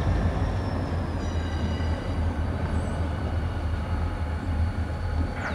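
Diesel-electric freight locomotive running with a steady low engine rumble as it moves slowly along the track at the head of a freight train.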